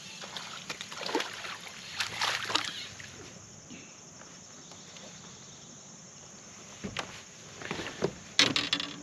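A crappie being landed in a fishing boat: splashing and handling noise, then several sharp knocks and clatter on the boat, loudest near the end.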